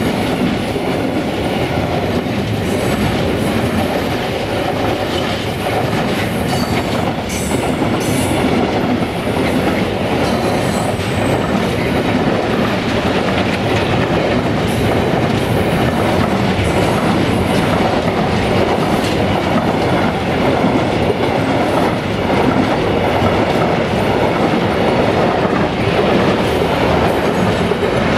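Intermodal freight wagons rolling past close by: a loud, steady rumble and clatter of steel wheels on the rails, with a few faint high wheel squeals.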